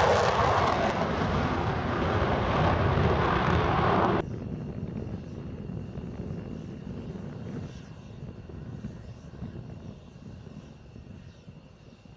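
Military jet's engines running loud as it speeds along the runway, cutting off suddenly about four seconds in. A much quieter low rumble with a faint steady high whine follows and fades.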